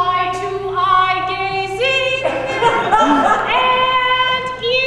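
A woman singing unaccompanied: a slow melody of long held notes.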